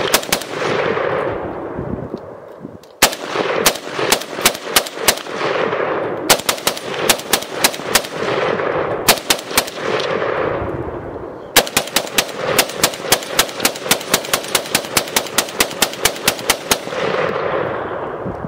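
AK-pattern pistol firing four strings of rapid shots. The last and longest string runs about five seconds at roughly five shots a second. Each string is followed by echo rolling back across the range.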